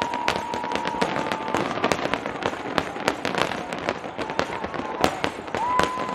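A large aerial fireworks display exploding in rapid, irregular succession: a dense run of bangs and crackling pops. A steady high whistle-like tone is held for about a second and a half near the start and again briefly near the end.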